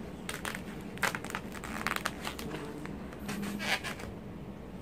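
Styrofoam food box being handled: a string of short rustles, scrapes and crinkles as it is opened and moved about.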